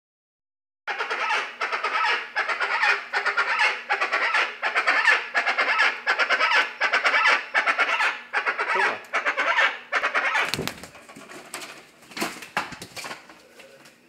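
Guacharacas (chachalacas) calling in a loud, raucous chorus: a fast, rhythmic run of harsh repeated calls starting about a second in. The chorus tails off over the last few seconds, with a few sharp knocks near the end.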